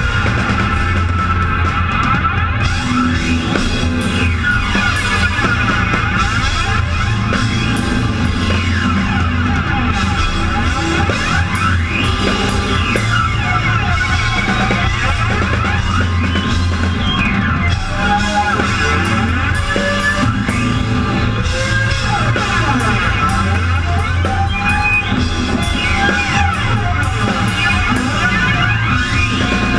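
Rock band playing live and loud: a Natal drum kit with cymbals, played hard under electric guitar.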